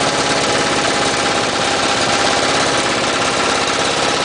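Wood chipper's engine running steadily, a loud, even mechanical sound with a rapid firing pulse.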